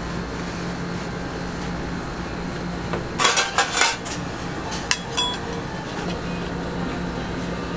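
Metal ice cream scrapers clattering and clinking against each other and the steel cold plate: a cluster of clatters about three seconds in, then two sharp ringing clinks a second later, over a steady low hum.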